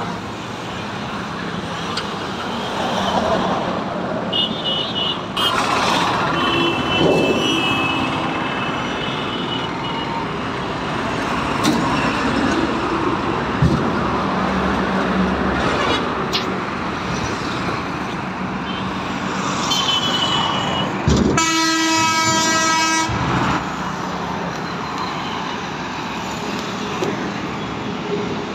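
Steady road-traffic and vehicle-engine noise, with a vehicle horn sounding for about two seconds roughly three-quarters of the way through and a few short high beeps earlier on.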